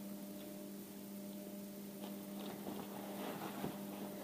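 Faint rustling and small clicks of a fabric shoe organizer being handled and folded, over a steady low electrical hum.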